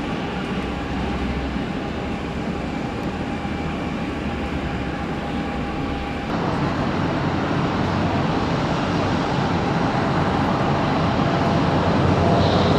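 Jet airliner engines running: a steady rumble with a thin whine. The sound jumps louder about six seconds in and keeps building towards the end.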